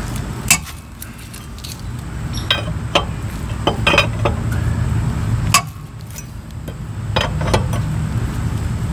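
Steel four-way lug wrench clinking on the wheel's lug nuts as they are loosened: about seven sharp metallic clinks spread out over a steady low hum.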